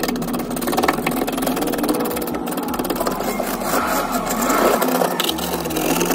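A thin metal pick scraping and chipping at thick ice built up on a vending machine's frozen-over refrigeration coil, in rapid, repeated scratchy strokes.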